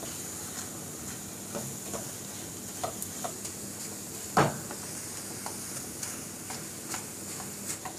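A silicone spatula stirring and scraping a thick bread-and-milk mixture as it fries in a nonstick pan, over a faint steady sizzle. Soft scrapes and taps come every second or so, with one louder knock about four and a half seconds in.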